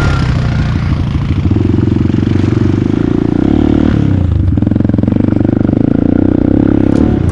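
ATV engine running hard under throttle, with a fast pulsing note; about four seconds in the pitch dips briefly, then picks back up.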